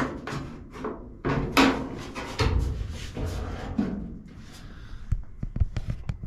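1969 Dodge Charger's door being opened, with a series of clunks and knocks, the loudest about a second and a half in, and small clicks near the end.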